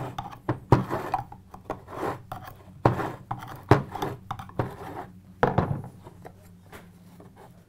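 Metal clicks, knocks and scrapes as the stock primary drive gear of a Honda CRF450 clutch basket is worked and pried up off the rubber cushions that hold it. About a dozen sharp clicks come at irregular intervals and thin out near the end.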